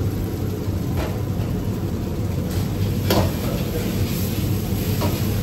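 Chicken pad thai sizzling in a wok over a gas burner, with a metal spatula scraping and knocking against the wok a few times as it is stirred, over a steady low rumble.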